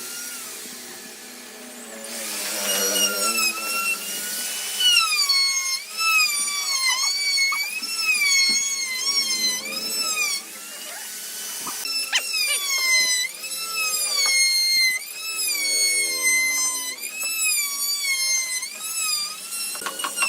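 Background music: a gliding, wavering lead melody in repeating phrases over lower sustained notes.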